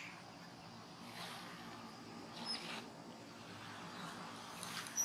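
A few faint, brief high-pitched squeaks from macaques over a quiet background, with a louder, wavering squeal starting at the very end.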